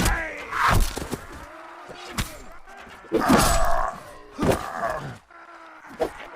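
A series of thumps and knocks, about six in all, with a louder, longer one around the middle.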